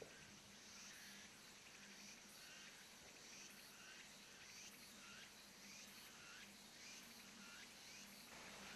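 Near silence: faint forest ambience with soft, repeated high chirps every second or so.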